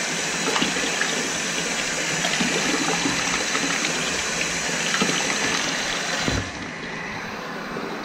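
A stream of water draining from an opened fitting on a steam boiler's control piping, splashing steadily into a bucket partly full of muddy water. About six seconds in there is a knock, and after it the splashing is quieter.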